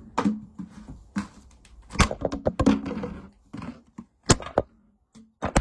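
A quick, irregular run of thumps and knocks of body and hand movement close to the microphone in a small room.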